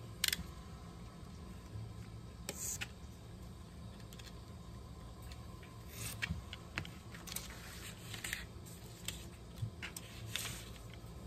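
Snap-off utility knife cutting through cover paper on a cutting mat, a series of short slicing and rustling sounds, the first the sharpest. The paper-covered board is shifted and turned near the end.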